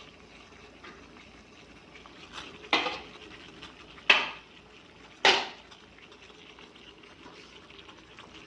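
Three sharp clinks of a utensil against a pot, a little over a second apart, over the faint steady sound of water boiling with whole spices.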